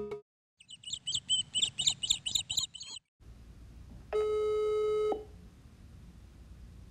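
A rapid string of high chirps for about two and a half seconds, then a steady electronic beep lasting about a second, like a telephone ringing tone.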